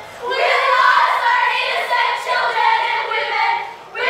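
Several young voices singing together, with held notes that overlap into a dense group sound.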